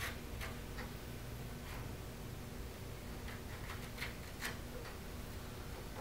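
Scattered light clicks and taps from hands working inside the plastic top bowl of a billiard ball polisher while fitting a replacement Velcro strip to its sidewall. A faint low hum sits underneath.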